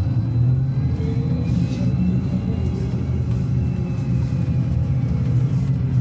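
Interior of a VMZ-5298.01 trolleybus under way: a steady low rumble of the running gear, with the electric traction drive's whine rising in pitch over the first couple of seconds as it picks up speed, then levelling off.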